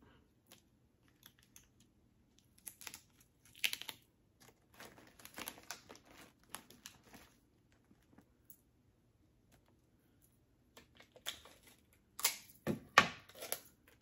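Plastic-wrapped jerky and cheese sticks crinkling and tapping as they are handled and set into a foam cooler: scattered short rustles and clicks, with the loudest cluster near the end.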